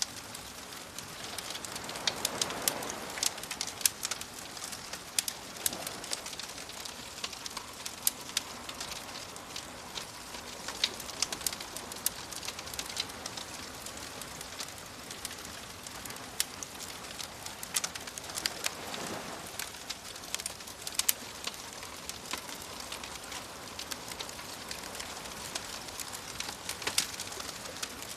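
Wood fire crackling and popping in frequent sharp snaps, over a steady wash of gentle waves that swells about two seconds in and again around nineteen seconds.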